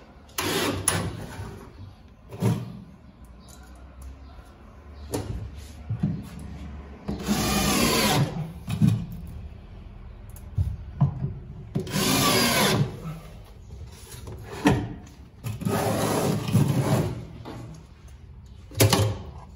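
Cordless drill-driver driving screws through metal telescopic drawer slides into an MDF cabinet side: three runs of about a second each, with shorter bursts and sharp clicks and knocks between them.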